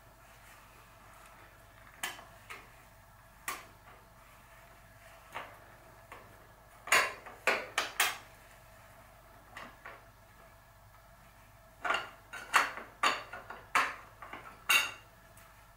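Metal tools clinking and knocking against metal during bottom bracket bearing fitting: scattered sharp clinks, loudest in a cluster about seven seconds in and another run between about twelve and fifteen seconds.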